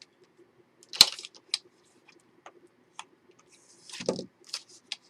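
Paper and chipboard pieces being handled and pressed into place. There is a sharp tap about a second in, scattered light clicks, and a short rustle near the end.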